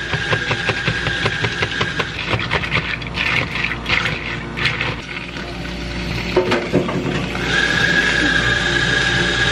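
Ice cubes clicking and rattling against a plastic cup as an iced drink is stirred with a straw, thinning out after about five seconds. A steady high machine whine fades out about two seconds in and comes back a couple of seconds before the end.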